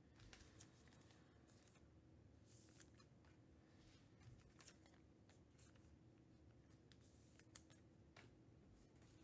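Near silence: faint room tone with a low hum and scattered soft clicks and rustles of cards being handled.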